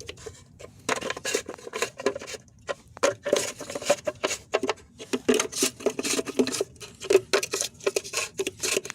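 Plastic lug nut caps being pushed onto a truck wheel's lug nuts by hand, making a quick irregular run of clicks and light knocks.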